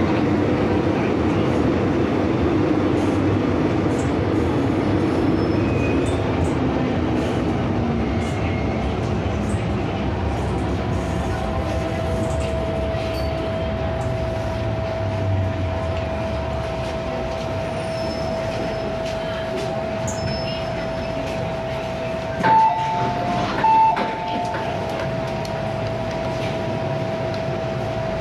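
MTR M-Train electric multiple unit running on the Tsuen Wan Line, heard from inside the car. Its running noise falls in pitch over the first several seconds as the train slows. A steady high tone then sets in, and two short electronic tones sound a little over a second apart near the end.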